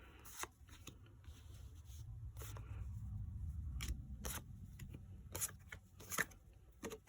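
Pokémon trading cards being handled and flipped through: scattered sharp clicks of card stock, over a low rumble of handling that swells in the middle and fades near the end.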